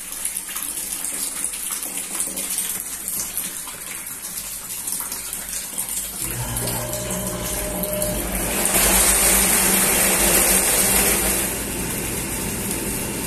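Whirlpool bathtub filling, with water running into the tub. About six seconds in, a steady low hum starts as the jet pump comes on. The churning water gets louder for a few seconds as the soap is whipped into foam.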